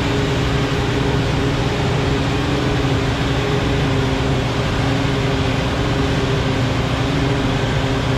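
Krone BigX 680 self-propelled forage harvester chopping maize and blowing it into a silage wagon, with the towing tractor running alongside. A loud, steady machine drone with a steady hum through it.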